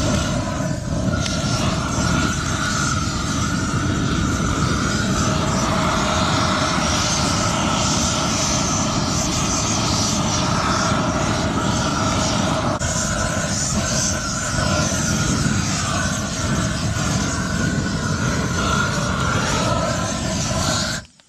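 Propane wand torch burning full on into kindling: a loud, steady roar with a wavering whistle in it, cutting off suddenly near the end as the flame is shut off.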